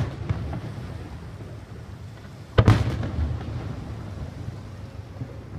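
Aerial firework shell going off across the water with a sharp boom about two and a half seconds in, then a low rolling rumble. The tail of an earlier boom fades at the start.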